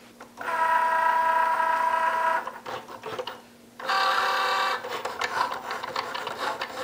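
Cricut Joy cutting machine running its motors as it moves the card mat and blade carriage to cut the card. It makes a steady whine for about two seconds, then pauses, then gives a shorter whine and a run of changing motor sounds.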